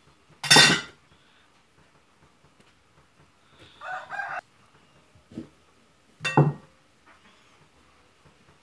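Two sharp, loud kitchen clatters about six seconds apart, with a shorter, softer sound and a light knock between them.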